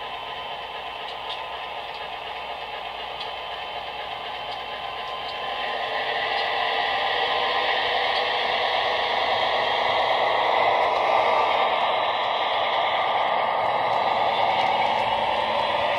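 Sound decoder in an OO-gauge Heljan Kestrel model diesel playing a recorded diesel engine running, through the model's small speaker; the recording comes from a French locomotive with an engine of the same series. It grows louder about six seconds in as the locomotive passes close, with a few faint ticks in the first seconds.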